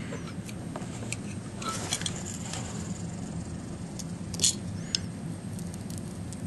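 Faint scraping and small crackling clicks as a razor blade pries broken touchscreen glass away from its contact-cement adhesive, over a steady low hum. The clicks come in clusters about 2 seconds in and again about 4.5 to 5 seconds in.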